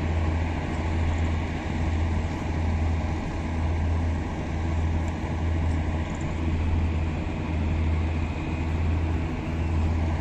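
A railway utility track vehicle (UTV)'s diesel engine running steadily: a continuous low drone with a slow, uneven throb.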